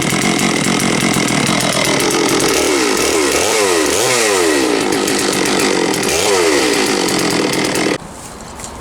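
Large two-stroke chainsaw running fast, its pitch dipping and recovering a few times, then cutting off suddenly about 8 seconds in.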